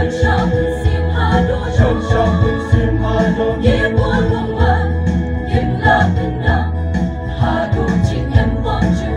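Mixed choir of women and men singing a hymn in harmony, amplified through PA loudspeakers, over a deep, steady accompaniment.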